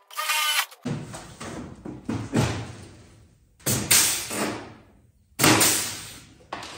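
Compressed-air blow gun firing several short blasts of hissing air at the freshly drilled hood panel, each cut off after a moment, with a brief high whine just before the first.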